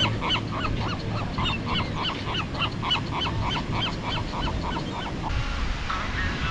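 Gulls calling: a rapid run of short repeated notes, about three a second, that cuts off sharply about five seconds in.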